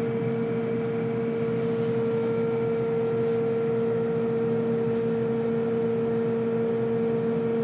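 Steady mechanical hum with one constant mid-pitched tone and a fainter lower one beneath it, unchanging in level.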